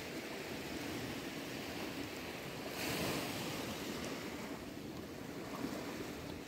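Sea surf washing on the beach, a steady rush with one louder wave about three seconds in.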